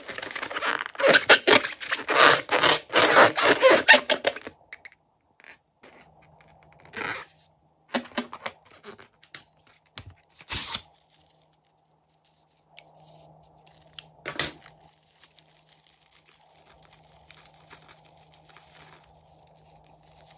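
A rubber balloon rubbed and squeezed between the hands, a fast run of rasping scrapes for about four seconds. Then a few quieter sharp snips as scissors cut into the balloon, and soft rubber handling near the end.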